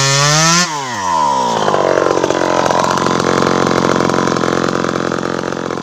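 Home-assembled 52cc two-stroke chainsaw held at full throttle, then let off less than a second in: the pitch falls quickly and the engine drops back to a fast, uneven idle that slowly fades.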